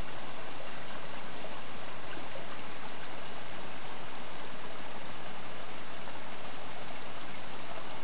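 Small woodland stream spilling over rocks in a little cascade: a steady sound of running water.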